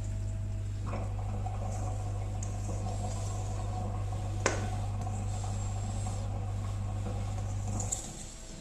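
A spatula scrapes cake batter out of a metal mixing bowl into a loaf tin, with one sharp click about halfway through. A steady low hum sits under it and cuts off near the end.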